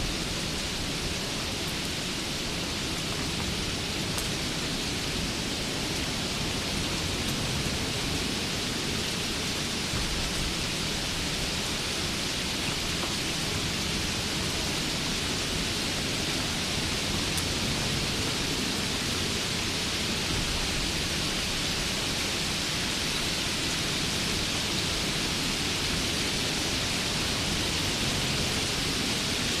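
Steady rainfall, an even hiss of rain with no single drops or rumbles standing out.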